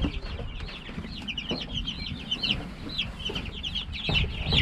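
A flock of young chicks peeping, many short high chirps overlapping without pause, with a dull bump about four seconds in.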